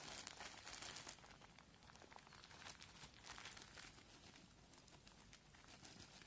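Faint crinkling of a plastic bag as gram flour is squeezed out of it into a bowl, busiest in the first second.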